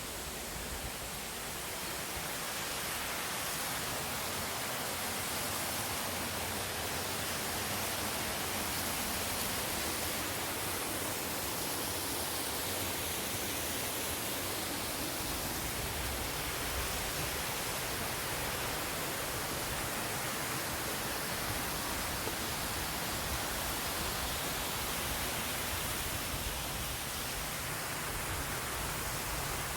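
Steady rush of falling mountain water, an even hiss and roar with no break, growing a little louder about two seconds in.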